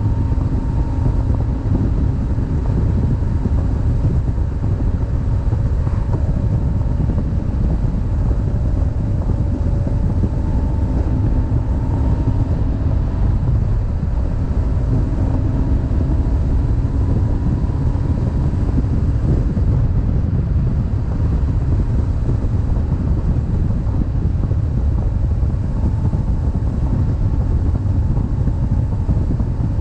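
Wind buffeting the microphone of a BMW boxer-twin motorcycle riding at steady speed, with the engine's drone under it, its pitch drifting slightly up and down.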